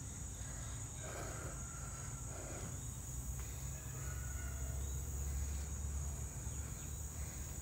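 Insect chorus: a steady high-pitched trill, under a low rumble on the microphone that swells around the middle.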